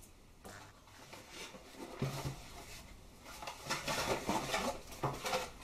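Cardboard shipping box being handled and tipped, with rustling and scraping as the boxed SSDs slide out, busiest about four seconds in, and a few soft knocks as they land on a cloth-covered table.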